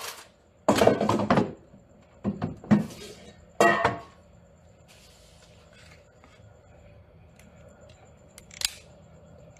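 Paper air-fryer liners and dishes being handled on a kitchen counter: a few short clattering knocks in the first four seconds, a soft paper rustle around the middle, and one sharp click near the end.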